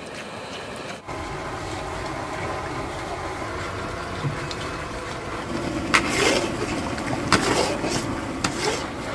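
Steady background noise, then from about halfway a metal ladle clanking and scraping against a pot of coconut-milk curry several times.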